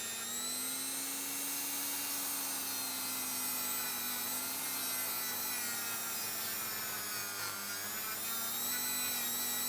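Rotary multi-tool (Dremel type) with a felt polishing wheel running at a steady high speed, giving a continuous motor whine with a light rubbing hiss as the wheel buffs small die-cast metal parts; the pitch sags slightly under load around eight seconds in.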